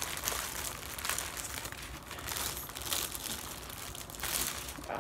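Clear plastic packaging bag holding small zip bags of diamond-painting drills, crinkling unevenly as it is handled and rummaged through.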